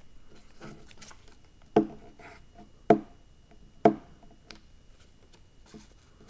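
Glue stick rubbing on construction paper laid on a wooden table, with three sharp knocks about a second apart.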